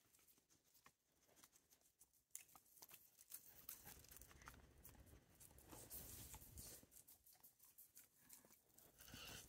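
Near silence with faint, scattered small clicks: a dog licking and nibbling at a baby back rib bone held in the fingers.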